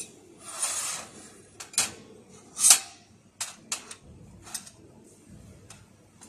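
Two short hisses from a handheld fiber laser welding gun firing brief tack welds on thin steel sheet, mixed with a handful of light metallic clicks and clinks as the steel plates are shifted and set against each other.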